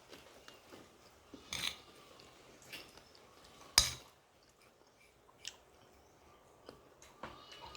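Someone eating: soft chewing with a few sharp clinks of cutlery against a plate, the loudest about four seconds in.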